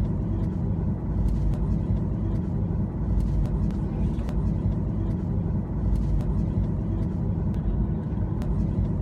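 Boeing 737 airliner's steady low rumble, with scattered light clicks over it.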